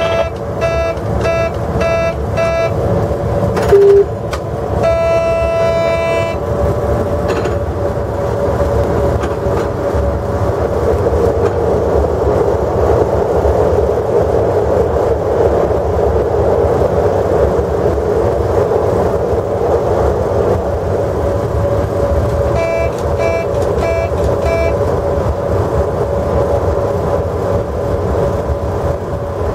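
Cab of a DB Class 103 electric locomotive running at speed, with a steady loud running noise. A run of short, evenly spaced beeps sounds at the start and again near the end, a brief sharp tone about four seconds in, and a pitched horn-like tone of about a second and a half just after it. A broad rushing swell builds in the middle as a freight train passes on the adjacent track.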